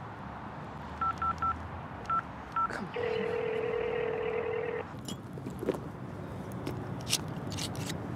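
Phone keypad beeps, five quick presses as a number is dialled, then a steady ringing tone for about two seconds as the call rings out.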